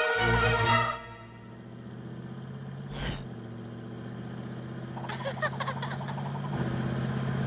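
Cartoon sound effects: a low, steady horn-like drone that slowly gets louder, crossed by a short whoosh and, later, a brief warbling effect.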